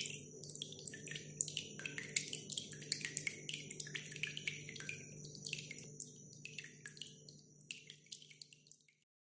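Water drops splashing and dripping in a quick, irregular patter over a low steady hum, fading out near the end.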